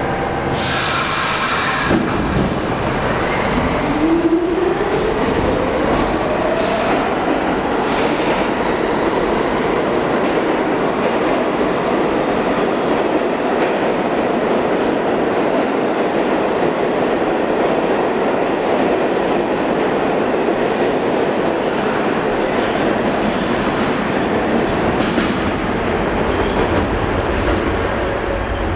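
R46 subway train pulling out of a station: a brief hiss about a second in, then the traction motors whine up in pitch as it accelerates, followed by a steady rumble and clatter of wheels on rail as the cars pass.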